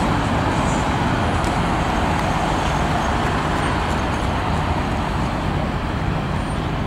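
Steady street traffic noise from passing cars and other vehicles.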